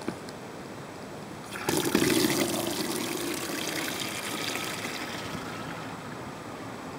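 Air rushing out of a tire inner tube: a loud hiss that starts suddenly about a second and a half in and slowly dies away.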